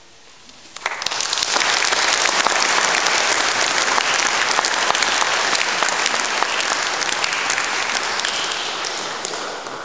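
Audience applauding in a reverberant church hall. After a brief lull, the clapping breaks out about a second in, holds steady, and begins to thin out near the end.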